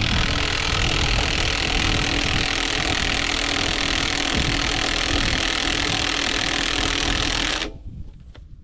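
A power tool motor running steadily as it spins a scissor jack's screw through a socket, raising the car, then stopping abruptly near the end.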